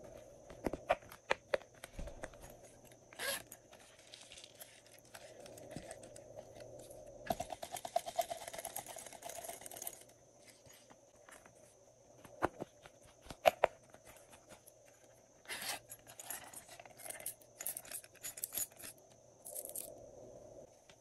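Handling a silicone pop-it purse with scattered taps and clicks, then its small zipper pulled open in one run of rapid, even clicks lasting about three seconds. Later come light rustles and clicks as its contents, star glitter and small beads, are shaken out.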